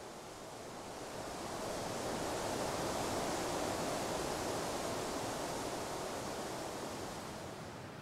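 A gust of wind rushing through conifer trees, swelling for a few seconds and then dying away.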